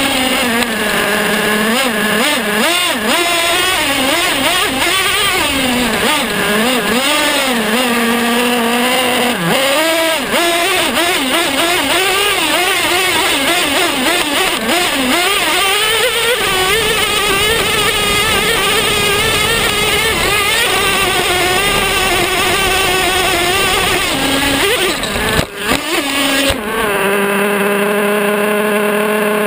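Traxxas T-Maxx nitro RC truck's small two-stroke glow engine revving up and down over and over as it drives across grass, then holding high revs. About 25 seconds in there are a few knocks as the truck rolls over, and the engine then settles to a steady idle while it lies upside down.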